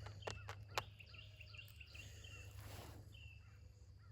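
Faint outdoor background with a bird chirping in short repeated notes over a steady low hum. A few light clicks in the first second come from handling the plastic and metal parts of a compost tumbler being assembled.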